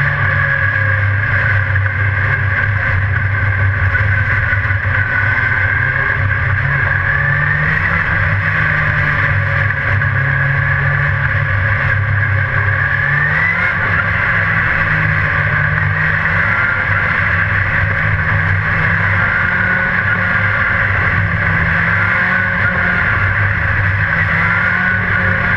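Dirt-track race car engine heard loud from inside the cockpit, running hard around the track, its note rising and falling as the throttle opens and lifts through the turns.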